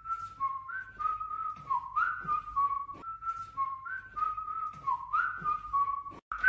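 A whistled tune: a short phrase of stepped notes, repeated about every three seconds over faint light ticks, breaking off briefly near the end.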